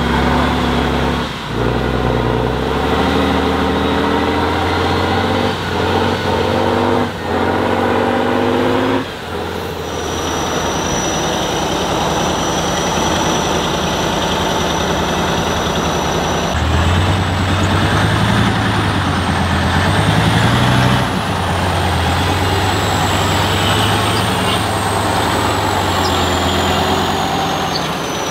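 Heavy off-road trial truck's diesel engine revving and labouring, its pitch rising and falling, broken by several sudden cuts in the first few seconds. In the second half a steadier engine runs under a high whistle that glides up and down.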